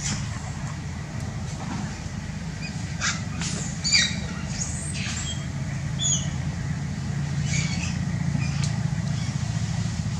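Outdoor ambience: a steady low hum with short, scattered high-pitched chirps and squeaks, clustered a few seconds in and again later.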